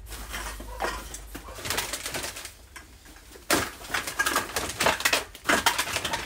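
Plastic bags full of empty drink bottles and cans rustling as they are crammed into a full wheelie bin, in irregular bursts that grow louder about halfway through.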